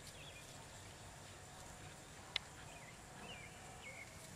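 Quiet outdoor ambience with a few faint, brief high chirps scattered through and a single sharp click a little past halfway.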